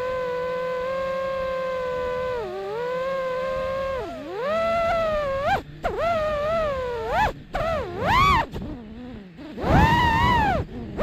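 FPV quadcopter motors whining: a steady tone for about four seconds, then swooping up and down in pitch with the throttle, cutting out briefly a few times, with a loud surge and rushing prop noise near the end.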